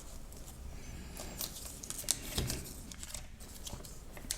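Light handling noises: a scattering of small sharp clicks and rustles as small parts and tools are handled and fiddled with.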